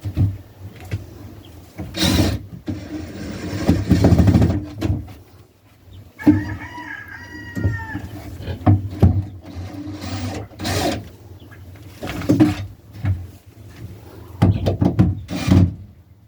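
Chickens calling, with one long call lasting about a second and a half about six seconds in, among several short loud knocks and rustles.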